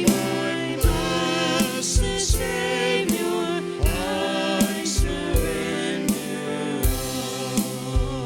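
Gospel-style worship music: voices singing over a band, with a drum beat about every three-quarters of a second.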